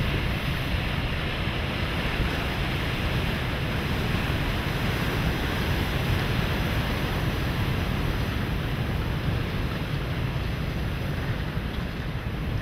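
Sea waves and wind buffeting the microphone: a steady rushing noise with a deep rumble underneath.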